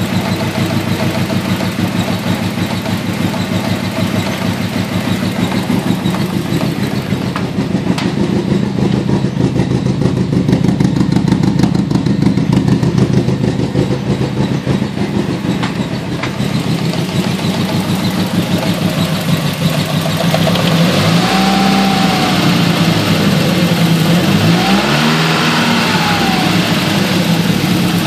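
Nissan CA18DET turbocharged 1.8-litre four-cylinder engine idling with a shaky, lumpy misfire, then revved in a few short blips near the end. Unplugging coil two makes no change to the idle although that cylinder has spark and fuel, so cylinder two is not firing.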